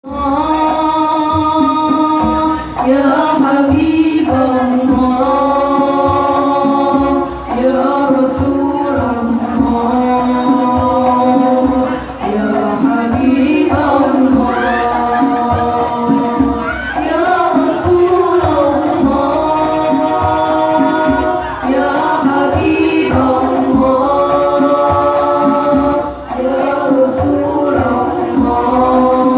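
Al-Banjari style sholawat: a group of young women singing an Islamic devotional song in unison into microphones, accompanied by steady rhythmic strikes on terbang frame drums. The singing pauses briefly between phrases.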